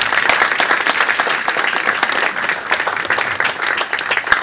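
Audience applauding, many people clapping at once, steady throughout and thinning out just after.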